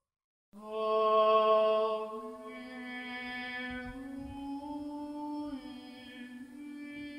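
Sung Orthodox chant: one melodic line of long held notes that steps slowly upward in pitch. It begins about half a second in and is loudest at first.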